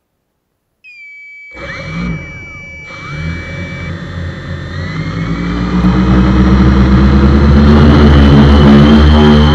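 DJI F450 quadcopter's motors and propellers spinning up on the ground. A high tone starts about a second in, then the motor and propeller sound grows steadily louder over several seconds and levels off near the end. It is heard very close, from a camera on the frame.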